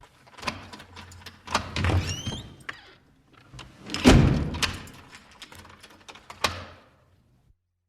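A door being worked: a series of latch and handle clicks, and a short squeak about two seconds in. About four seconds in comes a heavy thud as the door shuts, and near the end a single sharp latch click.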